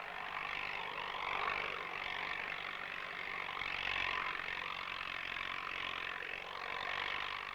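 A motor vehicle running: an even, rushing noise with no clear pitch that swells and fades a little.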